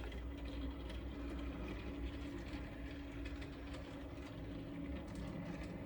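Raex MD360 electric curtain-track motor running steadily as it draws the curtains open: a low, even hum with a faint steady whine. It runs slowly at one constant speed, with no soft start or soft stop, because it is still in learning mode setting its own limits.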